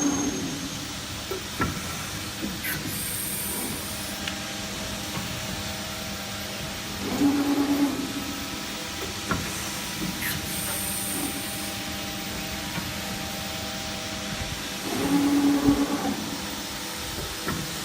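Electro-hydraulic CNC press brake running through repeated cycles: a steady hum and hiss, with a louder surge about every seven and a half seconds (three times) and a short high hiss midway through each cycle.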